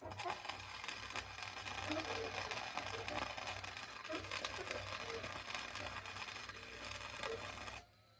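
Welding arc laying a bead on a joint: a steady, dense crackle over a low hum that starts abruptly and cuts off after about eight seconds. The bead was run a little hot.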